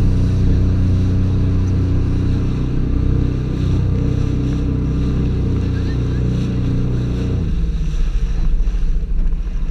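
Jet ski engine running at speed, with water rushing past the hull. About seven and a half seconds in, the engine note suddenly changes and drops lower.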